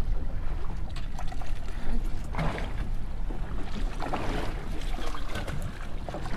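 Water splashing and trickling at a small fishing boat, in two short surges about two and a half and four seconds in, over a steady low rumble.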